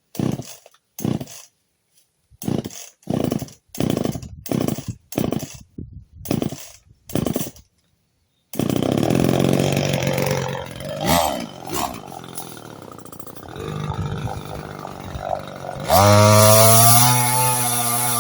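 Two-stroke chainsaw being pull-started: about a dozen short starter-cord pulls over some eight seconds, then the engine catches and runs at idle. Near the end the throttle opens suddenly and it revs up high and holds.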